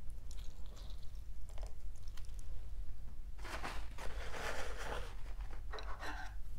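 A lime wedge squeezed by hand over a bowl of noodle soup, with faint small wet clicks and crackles. About three and a half seconds in comes a louder rustling noise, and a shorter one near the end.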